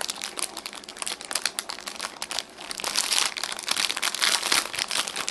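Clear plastic wrapping crinkling and rustling as it is pulled off a small figurine by hand, with a brief lull about halfway through.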